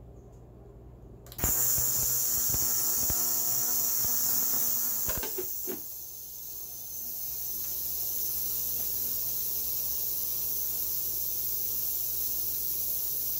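Ultrasonic cleaner switched on about a second and a half in, starting suddenly into a steady high hiss and buzz, with the shotgun's metal receiver sitting in the tank. A few clicks come as the lid is shut, about five seconds in. It then runs on steadily, a little softer.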